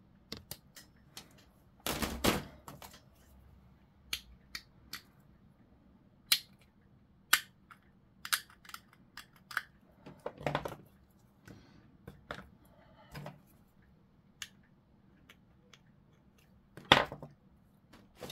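Sprue cutters snipping hard plastic model parts off a plastic sprue, heard as scattered sharp clicks and snaps, with lighter clicks of the plastic pieces being handled; the loudest snap comes near the end.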